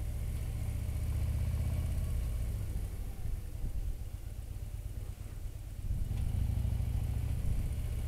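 Touring motorcycle's engine running at low road speed. It eases off about three seconds in and picks up again about six seconds in.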